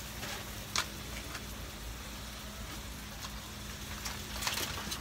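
Quiet handling of raw chicken pieces being set on a smoker's racks: a few short clicks and knocks, the sharpest about a second in and a small cluster near the end, over a steady low background rumble.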